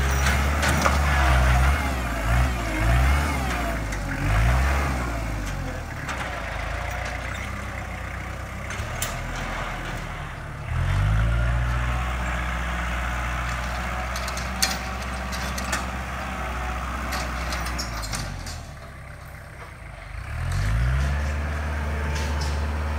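Kubota compact tractor's diesel engine running under a working load, revving up and settling back several times as the tractor maneuvers. The engine note drops away briefly near the end as it drives off, then revs up again.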